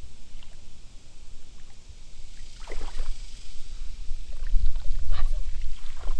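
Shallow creek water sloshing and splashing as a child wades in and sweeps a small dip net through it, with several short splashes in the second half. A low rumble runs underneath and grows louder in the second half.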